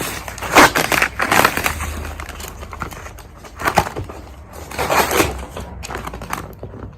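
Cardboard box and paper packaging being handled and pulled open: irregular crackles, crinkles and scrapes.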